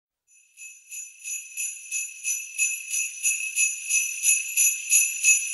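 Sleigh bells shaken in a steady rhythm, about three shakes a second. They fade in from silence over the first couple of seconds and grow steadily louder.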